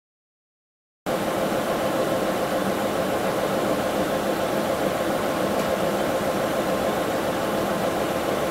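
Milling machine running with a steady, even whirring noise and a faint hum, starting abruptly about a second in after a moment of silence.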